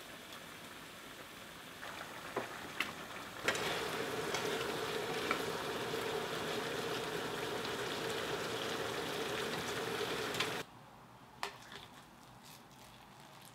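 Pork belly and chili sauce sizzling in a frying pan. About three and a half seconds in, the sizzle turns much louder as the stir-fry is tossed with a wooden spatula, then it cuts off suddenly. After that come a few faint scrapes of a rice paddle in a cast-iron rice pot.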